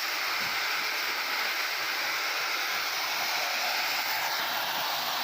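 A steady, even hiss that does not change in level or pitch.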